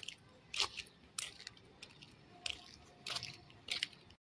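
Footsteps of shoes on brick paving at a walking pace, sharp clicks about every half second or so. The sound cuts out briefly near the end.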